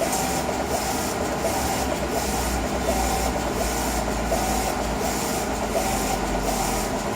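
Wide-format Chinese eco-solvent inkjet printer running, its print-head carriage sweeping back and forth in a steady rhythm of about one pass every three-quarters of a second over a constant low hum.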